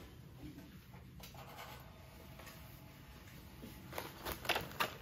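Quiet room, then from about four seconds in, crinkling and clicking of a plastic cookie tray and its foil wrapper being handled.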